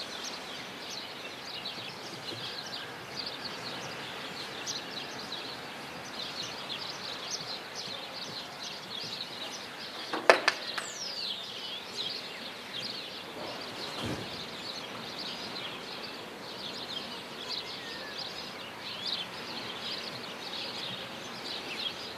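Many small birds chirping continuously in short high notes over a steady outdoor hiss, with one sharp click about ten seconds in.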